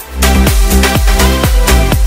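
Background electronic dance music with a steady beat, about four beats a second, and heavy bass, coming in at full loudness just after the start.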